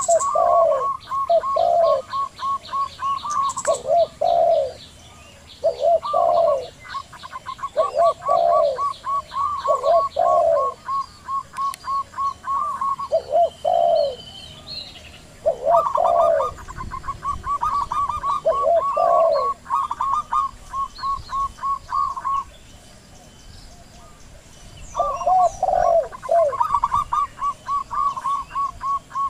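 Zebra doves and spotted doves cooing together: a fast run of short, higher coos over slower, lower, drawn-out coos, coming in bouts with two brief lulls.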